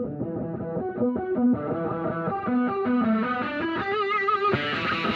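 Background music led by a distorted electric guitar playing a riff, the sound getting fuller and brighter about four and a half seconds in.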